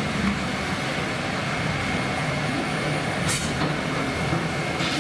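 Victorian steam beam engine's pump rods and valve gear running, a steady low mechanical rumble with a faint steady high whine. A single sharp clank comes about three seconds in.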